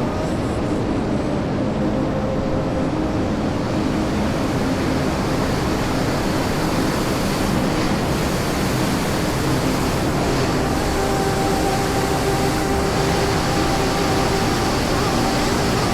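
Rushing water of a canyon waterfall or stream: a loud, steady roar.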